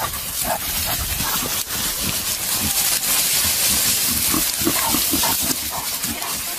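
A dog barking and wild boars grunting during a chase. A loud rushing hiss runs under them and is strongest around the middle.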